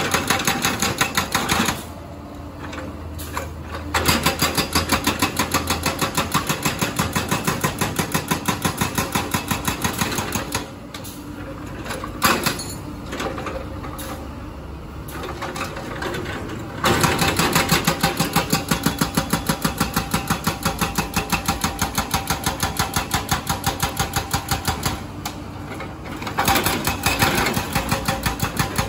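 Hydraulic breaker on a Komatsu PC200 excavator hammering concrete road pavement in runs of rapid, even blows, four runs of one to eight seconds each, with the excavator's diesel engine running in the pauses between them.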